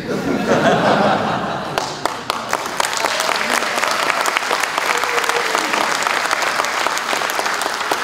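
An audience reacting with a wash of crowd voices, then breaking into sustained applause from about two seconds in.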